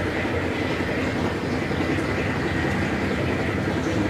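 Steady mechanical rumble with a low, even hum, unchanging throughout, as of machinery running.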